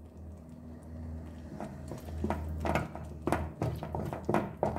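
Wooden spoon stirring thick melted cheese-and-cornmeal kuymak in a copper pan, knocking and scraping against the pan in a run of short strokes from about a second and a half in. A steady low hum runs underneath.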